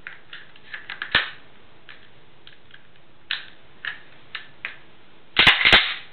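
Sharp metal clicks from a Winchester Model 1897 pump shotgun being handled as its two takedown halves are joined, then near the end a loud double clack as the slide action is cycled.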